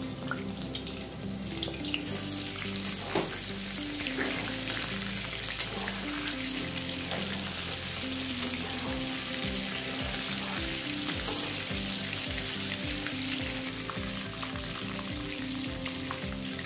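Cornflour-and-egg-coated chicken pieces deep-frying in hot oil in a kadai, sizzling steadily, with a few sharp clicks of a metal spatula against the pan as the pieces are turned. A background music tune plays underneath.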